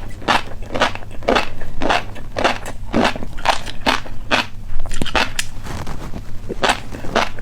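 Crunchy snack being bitten and chewed with loud, crisp crunches, about two to three a second, pausing briefly about two-thirds of the way through.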